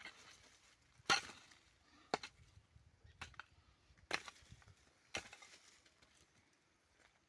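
A series of sharp chopping blows, about one a second, the first the loudest.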